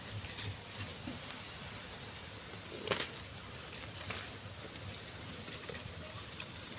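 Foliage rustling as a small plant is gripped and cut away with a knife, with one sharp click about three seconds in and a few softer ones around it.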